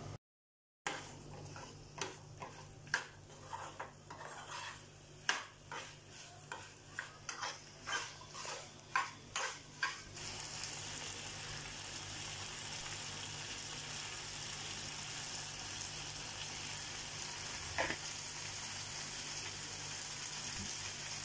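A metal spoon scraping and knocking in a frying pan as potato cubes and tomato are stirred, about two strokes a second; about halfway through the stirring stops and a steady sizzle of the vegetables frying in the pan carries on.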